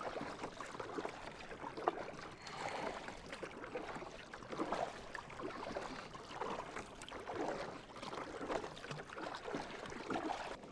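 Kayak paddling: a double-bladed paddle dipping and splashing on alternate sides, roughly one stroke a second, with a single sharp knock about two seconds in.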